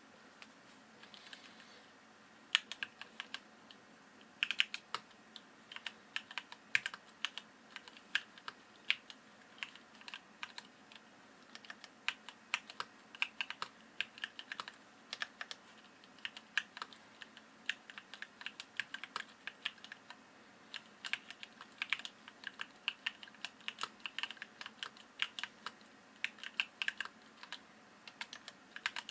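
Fast, uneven typing on a Nibble 65 mechanical keyboard with linear Gateron Ink Yellow switches and DSA keycaps: a dense stream of key clicks and clacks with brief pauses.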